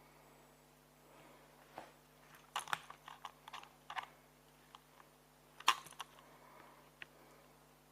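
Faint scattered light clicks and clatters, in small clusters about two to four seconds in and again around six seconds in.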